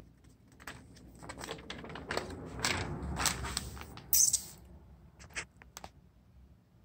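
Glossy paper flyer rustling and crinkling as it is handled and turned to the next page, in a run of short crackles with the loudest crinkle about four seconds in.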